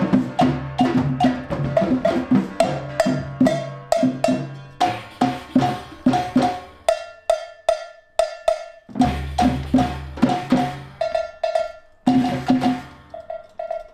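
A percussion ensemble playing a steady, fast rhythm: a dhol barrel drum and two tall wooden drums struck with sticks, over a high, bright tapping beat. About seven seconds in, the deep drums drop out for about two seconds, leaving only the high taps, then they come back in.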